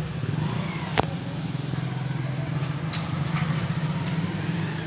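Petrol pump dispenser running with a steady hum while fuel flows through the nozzle into a motorcycle's tank, with one sharp click about a second in.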